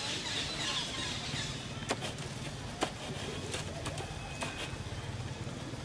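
Outdoor tree-canopy ambience: a low steady hum with faint bird chirps, and a few sharp snaps in the middle.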